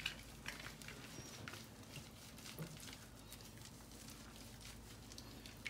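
Water dripping and lightly splashing off a wet kitten held just above shallow bathwater: scattered small drips and pats at an uneven pace.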